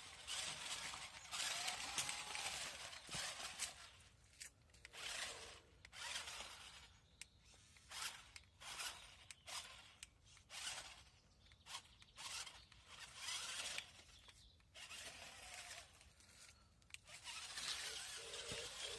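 A 4WD toy RC car's small electric motor and gears whirring in short bursts with pauses between them as the car is driven in spurts. The whirring runs more continuously near the start and again near the end.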